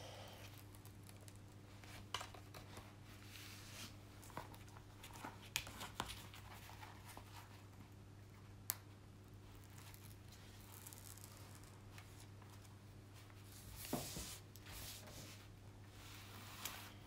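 Faint rustling and crinkling of a diamond-painting canvas and its protective cover sheet being smoothed flat by hand on a table, with scattered small clicks and a louder rustle about fourteen seconds in, over a low steady hum.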